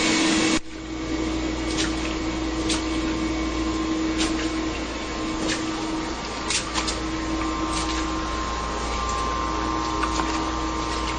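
Ridgid wet/dry shop vacuum running steadily, sucking up floodwater, with a few short clicks here and there.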